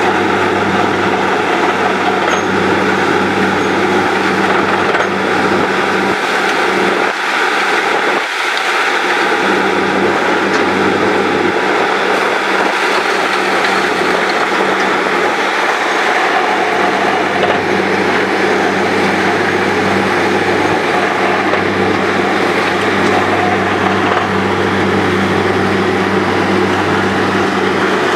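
Truck-mounted borewell drilling rig running steadily while drilling: a loud, continuous machine drone with a steady low hum, dipping briefly about seven or eight seconds in.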